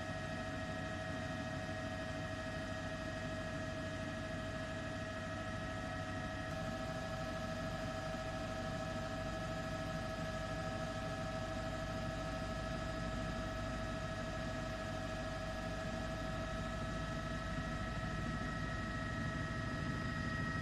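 Helicopter engine noise, heard from the aircraft carrying the camera: a steady drone with a constant high whine made of several pitches. The whine shifts slightly higher about six seconds in.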